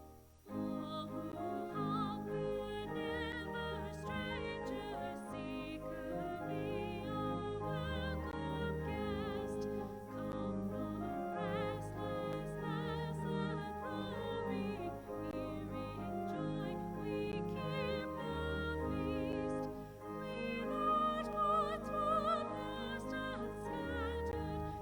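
A sacred song or hymn sung by a classically trained voice with wide vibrato, over sustained instrumental accompaniment.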